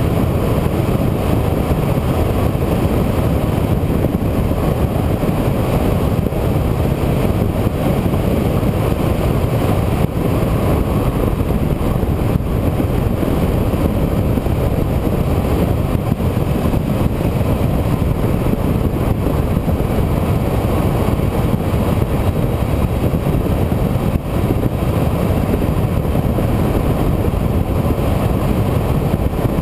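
Steady engine and road noise from a vehicle being driven along the road, without pauses or sudden events.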